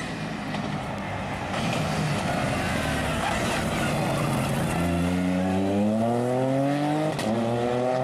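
Ford Fiesta rally car's engine through a corner: an unsteady, noisy engine sound at first, then about five seconds in it accelerates hard with its pitch climbing, drops once near seven seconds on an upshift, and climbs again.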